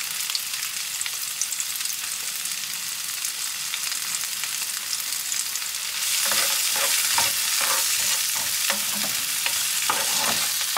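Onion, frozen mixed vegetables and sausage sizzling in oil in a non-stick frying pan, with faint clicks as sausage is snipped into it with kitchen scissors. About six seconds in, the sizzle gets louder and a spatula starts scraping and stirring through the pan.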